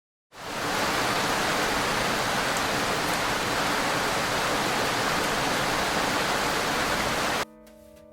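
Steady, heavy rain as a dense, even hiss, fading in quickly at the start and cutting off abruptly near the end, where soft sustained music notes begin.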